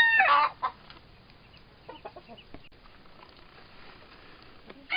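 Rooster crowing: the drawn-out last note of a crow ends about half a second in, followed by a few faint clucks from the flock. A second crow starts right at the end.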